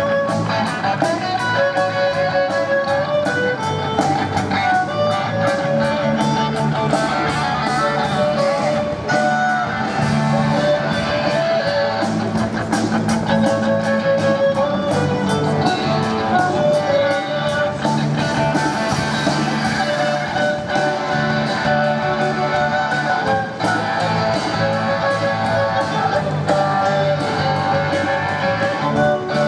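A small rock band playing live, electric guitars over a drum kit, with a steady beat of drum and cymbal hits throughout.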